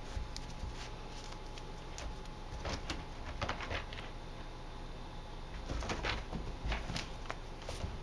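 Scattered short rustles, scrapes and soft knocks as a cat paws and swats at a furry toy mouse dangled by hand, over a low steady rumble.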